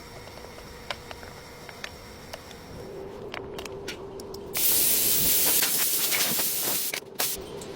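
Light clicks and taps of work on the brake assembly, then a loud, steady spray hiss that starts abruptly a little over halfway through and cuts off about two seconds later.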